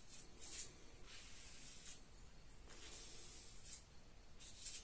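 Plastic applicator scraping car body filler into a scratch: a series of short, faint scraping strokes.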